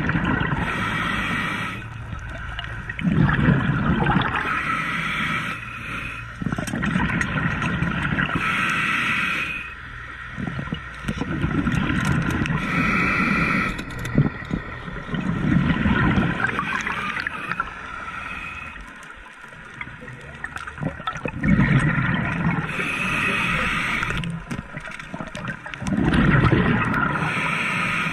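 A scuba diver breathing underwater through a regulator. Hissing inhalations alternate with gurgling bursts of exhaled bubbles, about six breaths in all.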